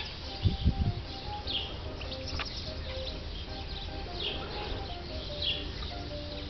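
Chickens calling: short high falling chirps come about once a second over many soft low calls. Two low thumps sound about half a second in.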